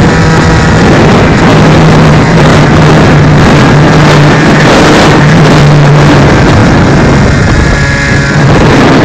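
Loud rushing of air over the microphone of a keychain spy camera riding on a radio-controlled glider in flight, with a steady low hum through most of it.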